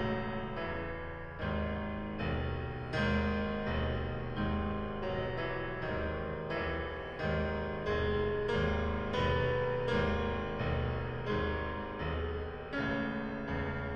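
Solo piano recording played back through a custom car audio system, heard inside the car's cabin: firm chords with deep bass notes, a new chord struck about every three quarters of a second.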